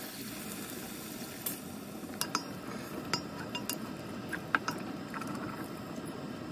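Stock pouring through a stainless mesh strainer into a pot of vegetables, then a wooden spoon stirring the wet mix, with a few light knocks against the pot.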